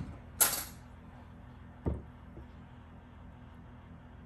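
Kitchen handling sounds at a counter: a short, sharp sound about half a second in and a dull knock about two seconds in, over a low steady background hum.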